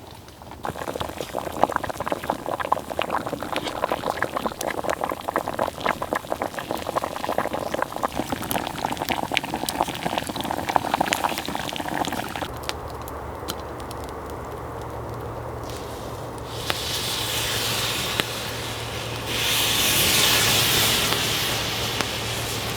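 A can of pork stew heating over a campfire. Dense crackling for the first half, then a steady sizzling hiss of melting fat and liquid that steps up in loudness twice in the second half.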